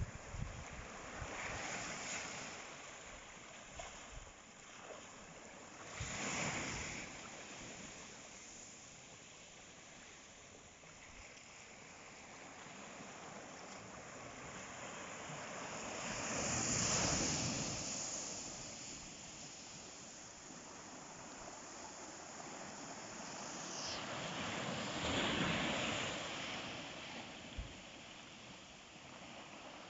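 Ocean waves breaking and washing up on the shore, several separate surges rising and falling over a steady hiss of surf, the loudest a little past the middle and near the end.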